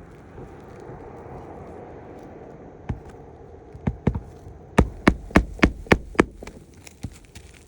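Hammer driving roofing nails into an asphalt shingle: a few single taps, then a quick even run of six hard blows, about three a second, then lighter taps near the end.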